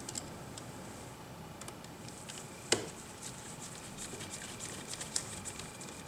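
Light clicks and ticks of a small screwdriver and screws against a tablet's metal frame as screws are driven back in, with one sharper click about three seconds in.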